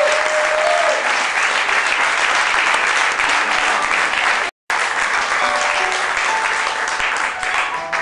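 Audience applauding steadily, with a single held musical note dying away about a second in. The sound cuts out completely for a moment about halfway, then the applause carries on.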